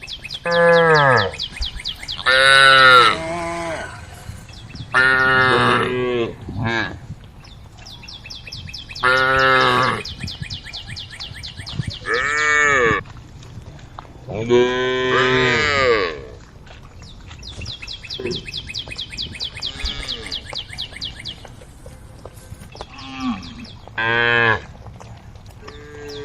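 Cattle mooing repeatedly, about seven calls of a second or so each, some bending up and down in pitch. Behind them runs a steady, high, rapidly pulsing buzz.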